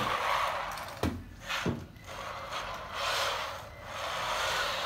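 Kyosho Mini-Z AWD RC drift car sliding across a smooth floor, its tyres scrubbing and its small electric motor running, in swells that rise and fall as it drifts through turns. Two short clicks come a little after a second in.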